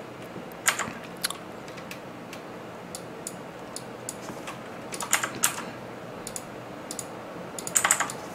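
Computer keyboard keystrokes, tapped a few at a time: scattered single clicks, a short flurry about five seconds in and another near the end.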